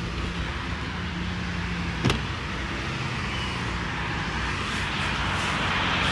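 Steady hum of road traffic and a running car engine, with one sharp click about two seconds in.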